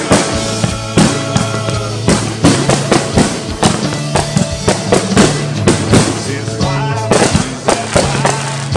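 Music with a drum kit and a bass line that shifts note every second or so, mixed with the bangs and crackle of aerial fireworks bursting.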